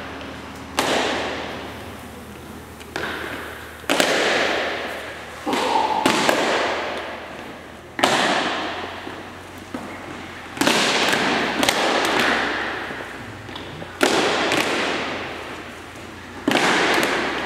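Cadet drill team's boots stamping and striking the hangar floor in unison: about a dozen sharp cracks, some in quick pairs, each ringing on in the long echo of the large hangar.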